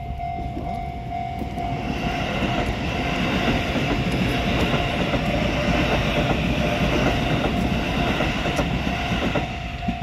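A Japanese level-crossing warning bell rings in steady repeated dings while a Shin-Keisei electric commuter train runs through the crossing. From about two seconds in, the wheels rumble and clatter on the rails, drowning the bell until the train clears near the end, when the bell stands out again.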